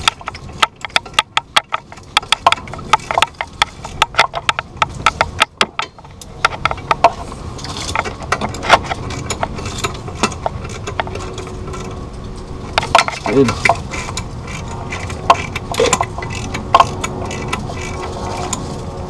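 Hand ratchet clicking in quick runs while the clutch pressure plate bolts are snugged up, for the first seven seconds or so, then scattered clicks and tool handling.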